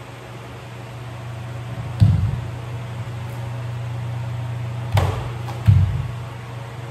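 Bare feet thudding on a wooden dojo floor as a bo staff kata is performed: one sharp thud about two seconds in and two more near the end, over a steady low hum.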